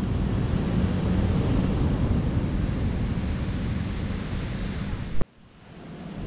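Wind buffeting the microphone during a bike ride, a dense low rumble. About five seconds in there is a sharp click, the sound drops away almost to nothing and then swells back up.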